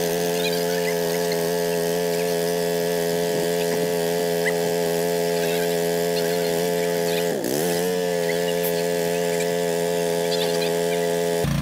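A small engine running at a steady speed. About seven and a half seconds in it briefly slows and then picks back up. Near the end it changes suddenly to a lower, pulsing engine sound.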